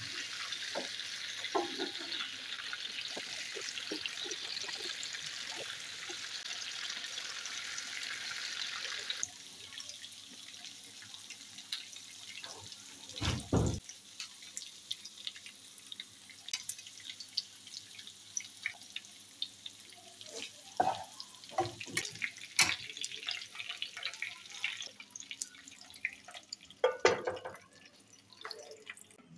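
Beef burger patties frying in shallow oil in a pan, with a steady sizzle. About nine seconds in the sizzle drops abruptly to quieter crackling and popping, broken by a few knocks of utensils against the pan.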